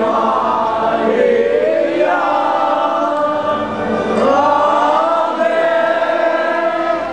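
A crowd of devotees singing together in loud, long held phrases, with a short break between phrases about four seconds in.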